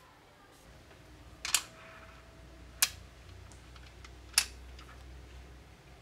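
Small neodymium magnetic balls snapping together: three sharp clicks over about three seconds, with fainter ticks between them, as a row of balls is pressed into place.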